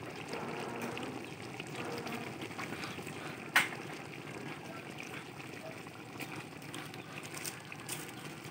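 Pot of thick goat kaldereta simmering over a wood fire: a steady low bubbling hiss with faint scattered crackles, and one sharp click about three and a half seconds in.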